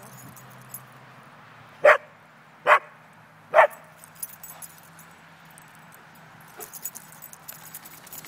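A dog barking three times, about a second apart.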